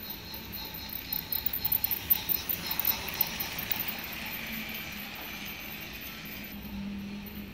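Toy train set's cars rolling past on the track, their wheels clicking quickly over the rail joints with a rattling run of clicks, then a steady rolling whirr that stops abruptly near the end.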